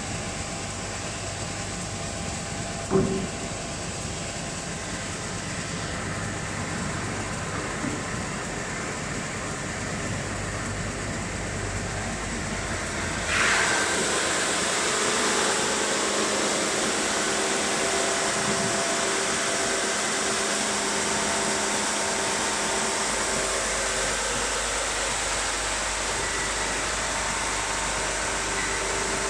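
MTWBS1300R-R wide-belt sanding machine running steadily with its conveyor feeding a solid laminated wood board, with a single knock about 3 seconds in. About halfway through, the board reaches the sanding belts and a louder, steady sanding hiss takes over.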